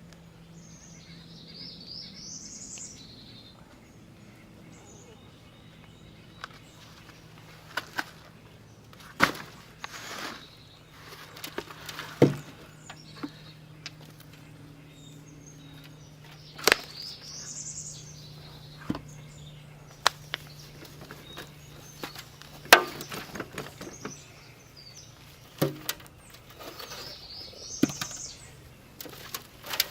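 Scattered knocks and rustling as dumped potting soil is sorted by hand and potatoes are picked out. A bird calls three times, each a short rising note.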